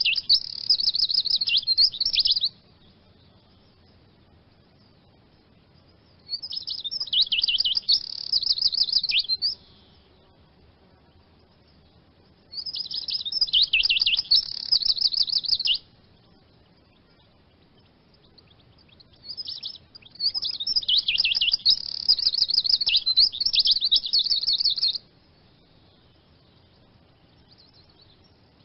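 Eurasian siskin singing: bouts of fast, high twittering trills a few seconds long, broken by pauses of about four seconds, the longest bout lasting about five seconds.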